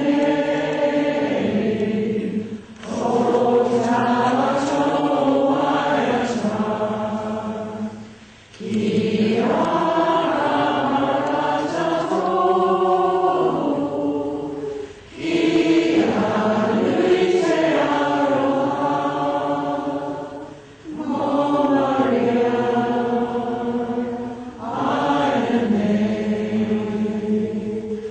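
A gathering of voices singing a slow hymn to Mary together, in long held phrases that break briefly for breath every few seconds.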